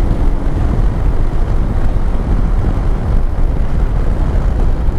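Steady wind rush over the microphone of a motorcycle on the move, over the low drone of its engine.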